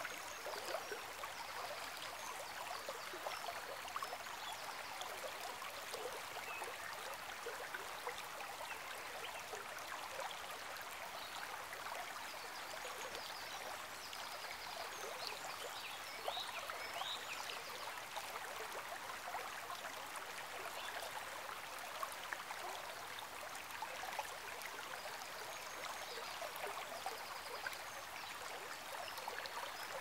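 Steady trickling, babbling water, dotted with many small drips and splashes.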